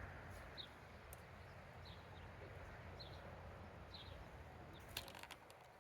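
Near silence: faint outdoor background with a short, high bird chirp repeated about once a second, and a few soft clicks near the end.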